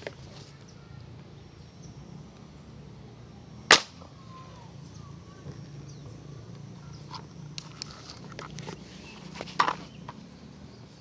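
One sharp shot from an air gun fired at fish in the water, about four seconds in, with a smaller knock near the end.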